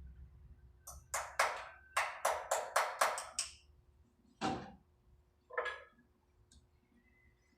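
A quick run of about eight sharp knocks or taps in two and a half seconds, then two more single knocks a second apart.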